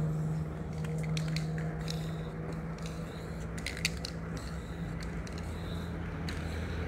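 Aerosol spray-paint can clicking and hissing in short sprays as warning letters are painted on asphalt, over a steady engine idle.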